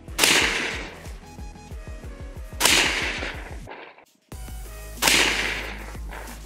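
Daniel Defense DDM4 V7 AR-15 pistol in 300 Blackout firing three shots about two and a half seconds apart. It is firing Gorilla 110-grain Controlled Chaos supersonic rounds, and each shot is a sharp report with a short ring that dies away.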